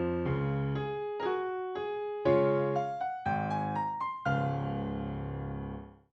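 Background piano music: a run of separate notes and chords, climbing in a short rising run about three to four seconds in, then a held chord that fades away near the end.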